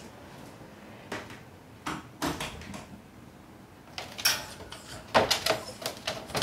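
Scattered knocks, then a denser run of clicking and clattering in the last two seconds, as a small chihuahua–maltese mix puppy moves about in its wire playpen, restless at being left alone.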